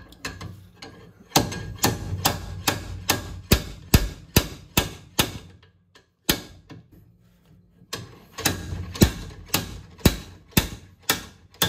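Slide hammer's sliding weight clanking against its stop in quick repeated blows, about three a second, in two runs with a short pause between, jerking a Daihatsu Mira's driveshaft out of the differential.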